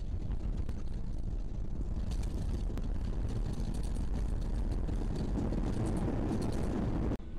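Cabin noise inside a Ryanair Boeing 737 rolling out on the runway just after landing: a heavy, steady rumble from the engines and the runway, with light cabin rattles on top. The sound cuts off abruptly near the end.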